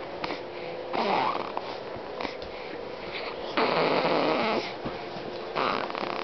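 A four-week-old baby snoring in her sleep: three noisy snoring breaths, the one in the middle the loudest and longest.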